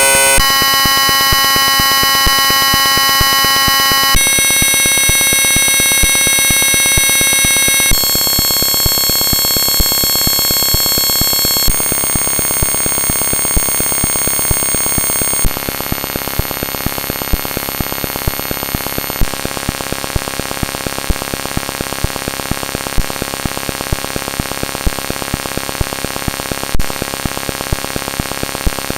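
US Emergency Alert System alarm sped up to extreme rates, turning into a harsh buzzing chord of steady tones over fast, dense clicking. The chord jumps to a new set of pitches about every four seconds and grows slightly quieter at each jump as the speed steps up again.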